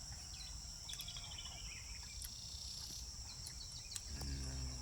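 Steady high-pitched chorus of crickets, with a short falling run of bird notes about a second in. A low human voice begins near the end.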